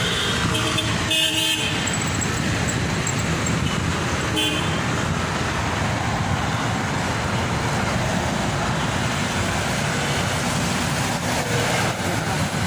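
Steady city street traffic noise from passing cars and motorcycles, with short vehicle horn toots about a second in and again around four and a half seconds in.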